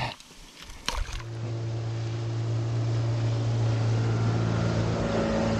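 Small outboard motor on an inflatable dinghy running steadily under way, a constant even hum that starts about a second in after a short knock.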